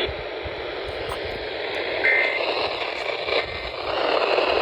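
Steady radio static hiss from the receiver carrying the emergency alert broadcast, the dead air left after the spoken warning ends. A brief faint tone sounds about two seconds in.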